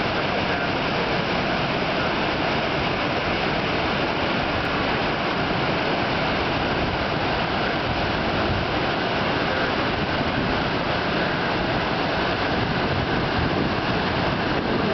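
Water cascading down the stone walls of the 9/11 Memorial reflecting pool into the basin: a steady, even rush of falling water.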